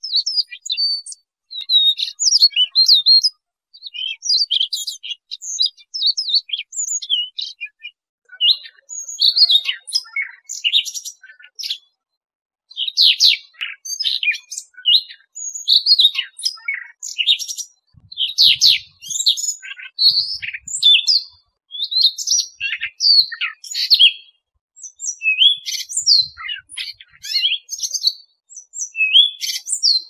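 Siberian rubythroat singing: a long, varied warbling song of quick high chirps and trills, delivered in phrases a few seconds long with short pauses between them.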